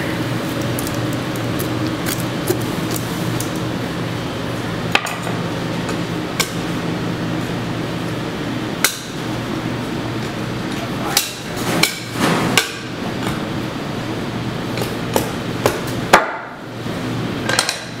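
Heavy meat cleaver chopping through a goat's rack and ribs onto a cutting board: a dozen or so sharp, irregular whacks, the loudest clustered in the latter half, over a steady background hum.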